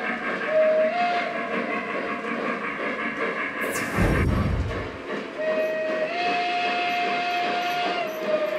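Lionel Legacy Pennsylvania B6sb 0-6-0 switcher model's onboard sound system blowing its steam whistle: a short toot, then a longer blast from about five seconds in to near the end, each starting slightly low and stepping up in pitch, over a steady steam hiss. A sudden low thump about four seconds in.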